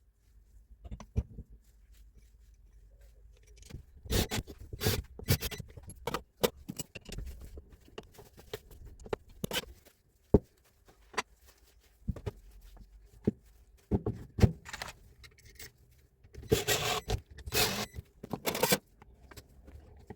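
Metal parts and hand tools being handled during a rebuild of a Hilti TE76 rotary hammer: irregular clinks, knocks and scrapes, with bursts of rattling scrape a few seconds in and again near the end. A faint steady hum runs beneath.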